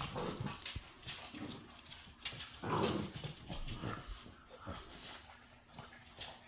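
Pit bull puppies playing: short whimpers and yips, the loudest about three seconds in, among scattered scuffling clicks.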